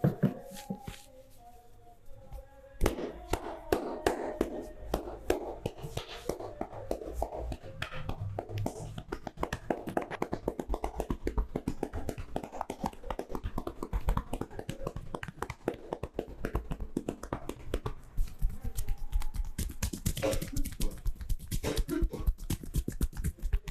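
Percussive hand massage: palms and fingers tapping and chopping on the body in fast, continuous strikes, starting in earnest about three seconds in.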